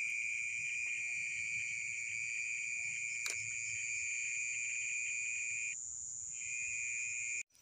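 Chorus of night insects trilling steadily at a few high pitches; the lowest trill stops for about half a second near six seconds in. A single light click about three seconds in, and the sound cuts off suddenly just before the end.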